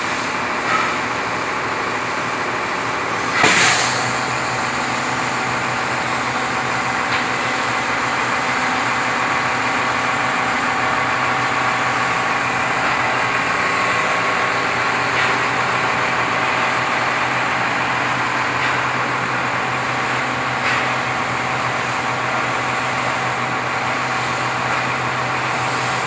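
Diesel engine of an XCMG mobile crane running steadily during a lift, with a single sharp knock about three and a half seconds in.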